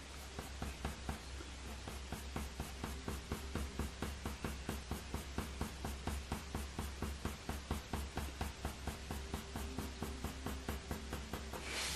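Coloured pencil scratching on hot press watercolour paper in quick, short, repeated hair strokes, several a second in an even rhythm.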